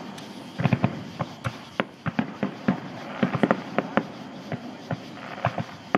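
Aerial fireworks shells bursting: an irregular run of sharp bangs and pops, coming several a second in quick clusters.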